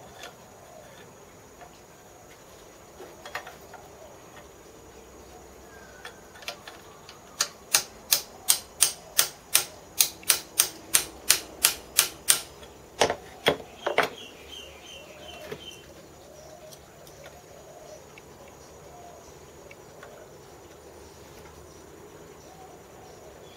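Small hammer tapping on the headstand casting of a home-built Gingery milling machine to nudge it into alignment with the bedways: a run of about fifteen quick light taps, about three a second, then two harder knocks.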